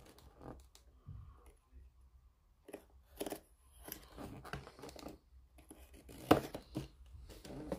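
A hobby knife slicing through the tape seals on a cardboard model-kit box: a series of short cuts and scrapes against the card, the sharpest about six seconds in.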